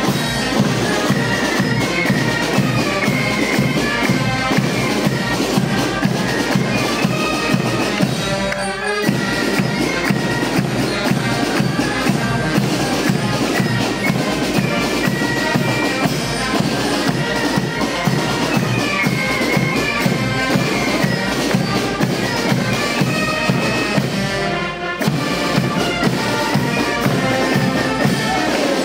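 Band music: a tune on wind instruments over a steady drumbeat, breaking off briefly twice, about a third of the way in and near the end.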